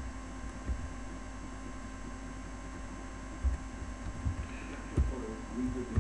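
Steady electrical mains hum, with a few dull low thumps, the clearest about three and a half and five seconds in.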